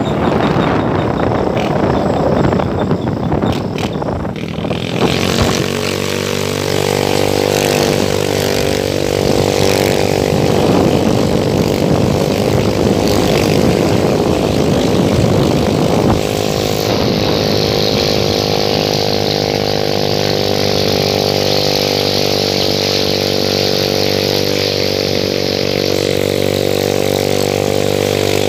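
Motorcycle engine running at a steady riding speed, droning evenly; over the first few seconds a loud rushing noise covers it.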